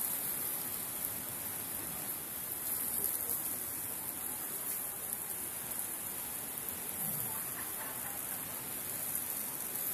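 Ono fillets sizzling on a hot grill grate: a steady hiss.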